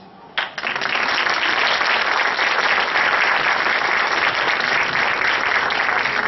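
Audience applauding, starting suddenly about half a second in and keeping up a steady, dense clapping.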